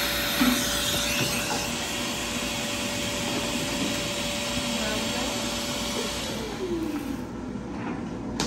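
Cold-air skin cooler used during laser tattoo removal, blowing through its hose with a steady hiss and fan whine; about six seconds in the whine falls in pitch and the hiss dies away as the blower winds down.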